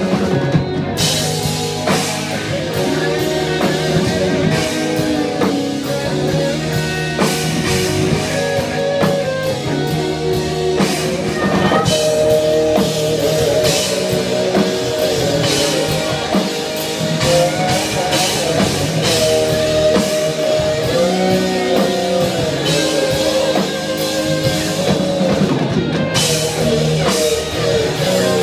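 A rock band playing live, with guitar and drum kit.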